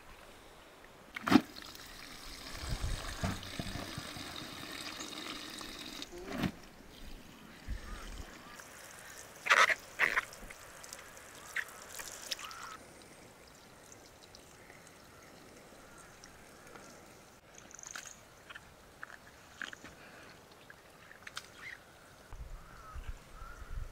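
Water running from a pipe into a plastic bucket of laundry, a steady splashing that stops about halfway through. Sharp knocks come about a second in and two loud ones near the middle, with scattered small clicks and splashes afterwards.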